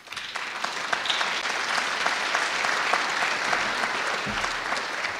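Audience applauding: a dense patter of many hands clapping that begins at once and starts to die away near the end.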